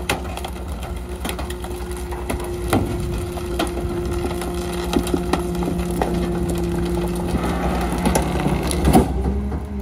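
Rear-loader garbage truck's hydraulic packer blade compacting trash in the hopper: cracking and splintering of the load over a steady drone from the engine and hydraulics. A louder knock comes about nine seconds in as the blade finishes its stroke.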